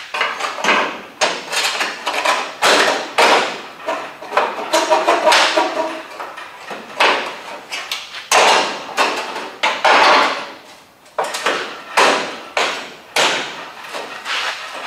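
A sheet-metal rocker panel scraping and knocking against a car's sill as it is pushed and worked into place, in irregular strokes of varying length, with a brief metallic ring about five seconds in.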